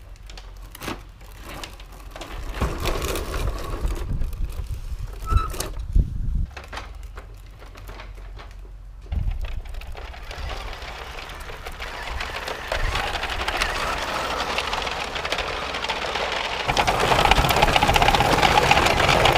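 Bruder plastic toy trucks rolling over rough paving stones. Scattered knocks and clicks in the first half give way to a steadier rolling rush that builds from about halfway and is loudest near the end.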